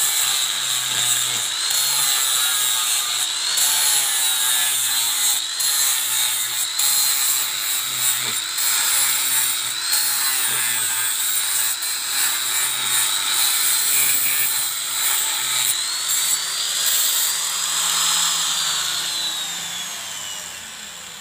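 Electric angle grinder with an abrasive disc grinding the edge of a steel machete blade made from an old bearing. The motor's whine dips and wobbles in pitch as the disc bites, over a harsh grinding hiss. Near the end the grinder comes off the steel, speeds up, and is switched off, its whine falling and fading as it spins down.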